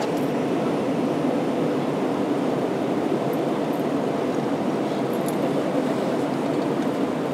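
Steady cabin noise inside an Airbus A320 in climb after takeoff: engines and rushing air make an even, low rumble that holds the same level throughout.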